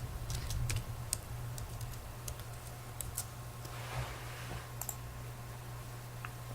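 Faint, scattered light clicks over a steady low hum.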